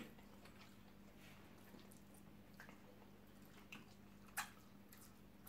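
Near silence with a few faint, short eating sounds, chewing and mouth clicks, one a little clearer near the end.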